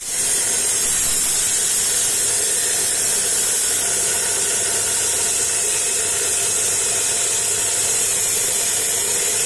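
Handheld electric disc cutter sawing into a concrete slab: a loud, steady grinding hiss with the motor's steady whine underneath.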